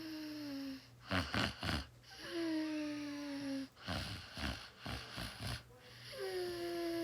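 Snoring in a slow repeating cycle: a rough, rasping snore, then a long whistling wheeze that slides slightly down in pitch, about one breath every three and a half seconds.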